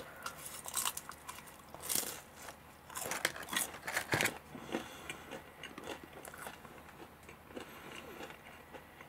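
Close-up chewing of a Pizza Hut Gratin Hut Melt, a folded pizza with a crisp baked crust: irregular crunches and wet mouth clicks, loudest about two seconds in and again between three and four seconds in.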